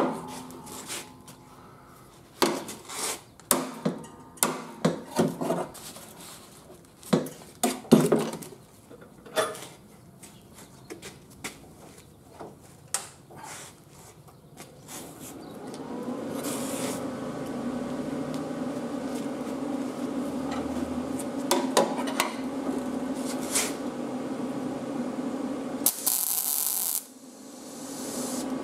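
Scattered knocks and clanks of a hammer and hand tools against a steel mower deck, then a steady hum for about ten seconds that cuts off suddenly near the end, followed by a brief hissing burst.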